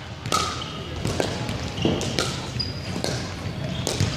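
Pickleball rally: paddles strike a hollow plastic pickleball, about five sharp pocks in a few seconds, each echoing in a large gym. Short high squeaks come in between the hits.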